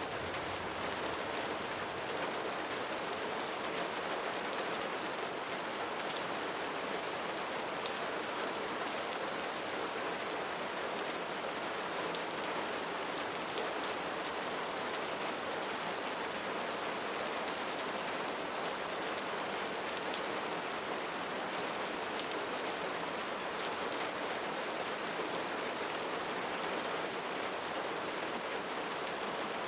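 Steady, even rain with fine patter of drops on leaves.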